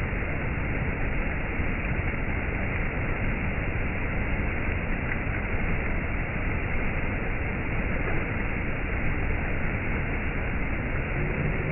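Waterfall: a steady, even rush of falling water. A low steady hum joins in near the end.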